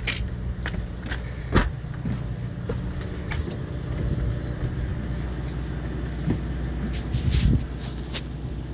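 Fishing boat's engine running with a steady low hum, with a few short knocks on deck, the loudest about one and a half seconds in and another pair near the end.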